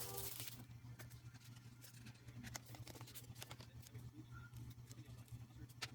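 Faint rustling and light scattered ticks and taps of album packaging and cards being handled, with a brief rustle at the very start, over a low steady hum.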